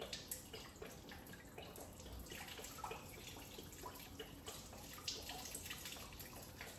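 Engine coolant dripping and trickling steadily from a disconnected coolant-tank hose, as the system drains.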